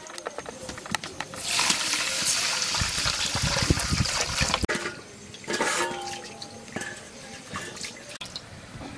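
Hot water poured from an aluminium pot over rice in a large aluminium bowl, a rushing splash lasting about three seconds, preceded by light clinks of the metal pots being handled. Afterwards come quieter sloshing and brief metallic clinks as hands work the rice in the water.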